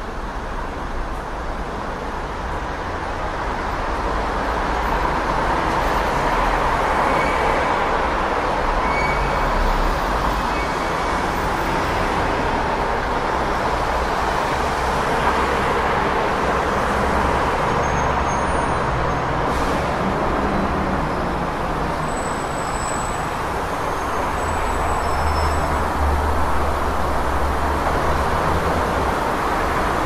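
City street traffic: a steady wash of passing cars and other vehicles, with a low engine rumble that swells about four seconds in and again near the end. A few faint short high squeaks come now and then.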